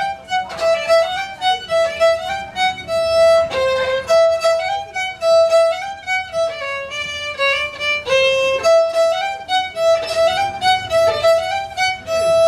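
Background music: a fiddle tune of quick, distinct notes.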